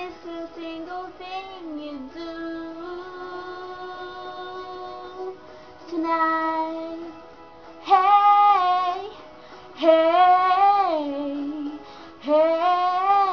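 A girl singing solo, first holding one long steady note, then several short phrases that slide up and down in pitch with brief pauses between them.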